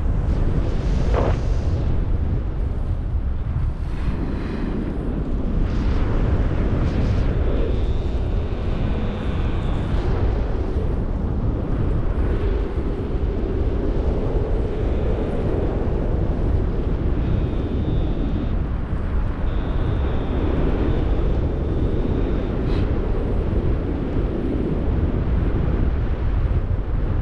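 Wind buffeting the microphone in a steady, heavy rumble: the rush of air past a paraglider pilot's camera in flight.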